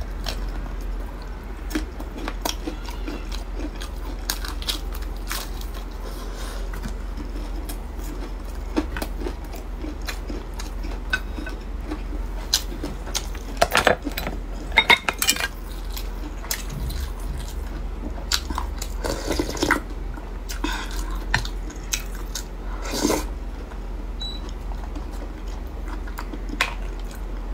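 Close-miked chewing and biting of a crispy fried chicken cutlet, with crunches and mouth noises, and a few louder sharp clicks about halfway through. A low steady hum runs underneath.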